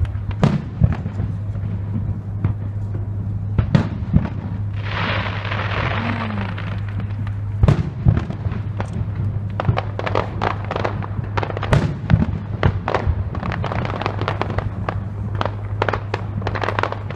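Aerial fireworks shells bursting in a string of sharp bangs, coming thicker in the second half, with a spell of crackling about five seconds in.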